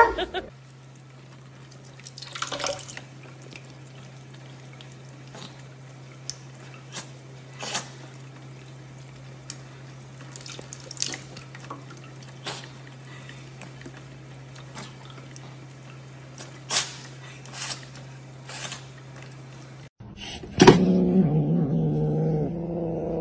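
Water dripping from a kitchen faucet into the sink, single drops falling at an uneven pace over a steady low hum. About 20 seconds in, this gives way to a louder cat growl over a food bowl.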